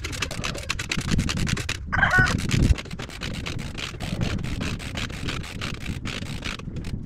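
Wind rumbling and crackling on the microphone, with a short high-pitched squeal about two seconds in.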